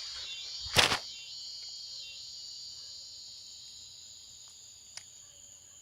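Crickets chirring in a steady chorus that slowly fades, broken by one short, sharp burst of noise about a second in.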